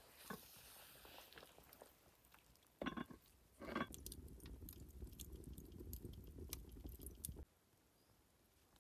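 Wood fire burning in a mud-and-clay oven under a clay pot: a low rumble with scattered crackles and pops. Two short knocks come about three seconds in, and the fire sound cuts off suddenly near the end.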